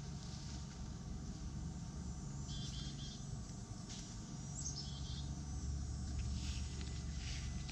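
Outdoor garden ambience: a steady low rumble, with a few short high chirps and some light rustles.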